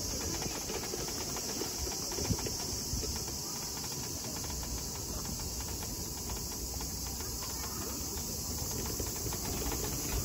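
Outdoor ambience: a steady high-pitched insect drone over an uneven low rumble.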